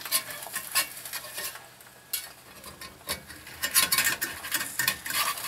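A spatula scraping and clicking against a cast iron skillet as an omelet is worked at in the pan, over a faint sizzle of egg frying. The scrapes thin out about halfway through, then pick up again in a quick flurry.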